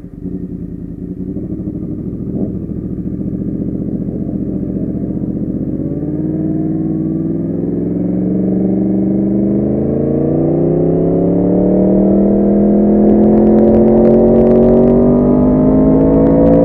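Motorcycle engine running under load, its pitch and loudness climbing slowly and steadily through most of the stretch as it accelerates.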